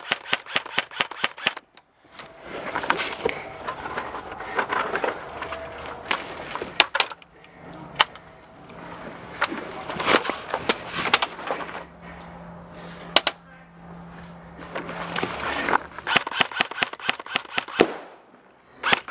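Airsoft electric rifles firing rapid full-auto bursts of sharp clacking shots, with scattered single shots between the bursts.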